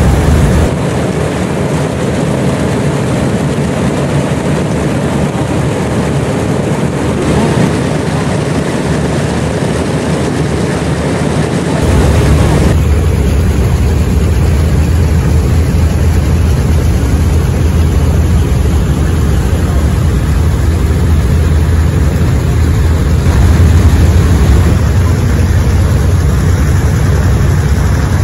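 Wright R-2600-20 Twin Cyclone 14-cylinder radial engines of Grumman TBM Avengers running up on the ground, a loud, steady, deep rumble. The deep part of the sound thins about a second in and comes back stronger around twelve seconds in.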